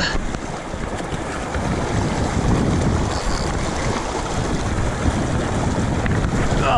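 Arkansas River water rushing over rocks in a riffle: a steady wash of noise, with a low rumble that swells in the middle seconds.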